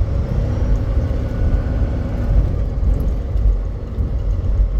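Semi truck on the move: a steady low rumble of engine and road noise.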